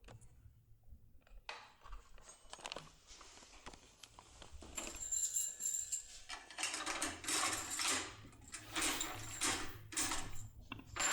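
Small metal lock-picking tools being handled, with light clinks, scrapes and rattles of metal on metal, and a brief high metallic ring about five seconds in.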